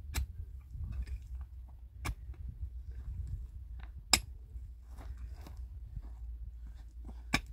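Pickaxe blows into stony soil, four strikes about two seconds apart, the third the loudest, over a low steady rumble.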